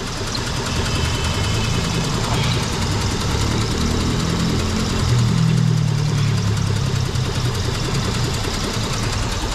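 A 2003 Mitsubishi Eclipse four-cylinder engine idling roughly and unevenly, misfiring badly with only some cylinders firing. The mechanic suspects the engine computer is sending a weak pulse.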